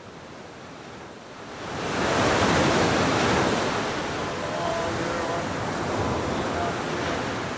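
Ocean surf breaking over rocks and washing up a sandy beach. The wash swells to its loudest about two seconds in, then runs on as a steady rush of foaming water.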